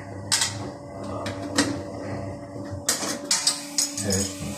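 Sharp clicks and knocks of toilet cistern fittings being handled during a repair, a few spaced out and then a quick cluster near the end, over a steady low hum.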